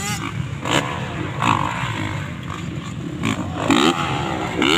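Motocross dirt bike engines revving on the track, their pitch rising and falling several times, loudest near the end.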